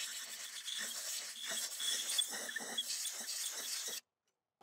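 Aerosol carburetor cleaner sprayed from its straw onto the engine's carburetor mating surface to clean off debris: a steady hiss with small uneven flickers, cutting off abruptly about four seconds in.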